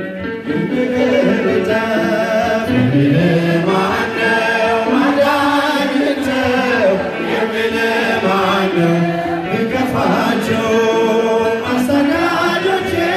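A group of men singing an Ethiopian Orthodox mezmur (hymn) together in chant style, a lead singer on a microphone with the others joining.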